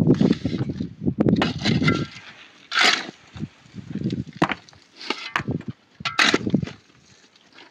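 Steel shovel digging into dry, stony soil: several irregular scraping and thudding strokes as the blade bites into dirt and rock.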